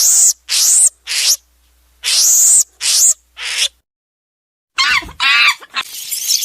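A series of harsh, screeching animal calls, each about half a second long and roughly two a second, with a gap of a second or so in the middle. After a short silence come a few shorter, different calls near the end.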